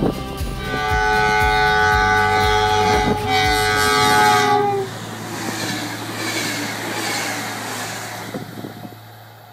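SBB Stadler KISS double-deck electric train sounding its horn in one long blast of about four seconds as it approaches. The horn cuts off and the train's running noise follows, falling in pitch as it passes and fading away.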